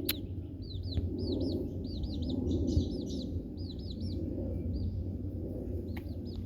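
Baby chicks peeping: short, high, arched chirps in quick runs of two or three, over a steady low hum.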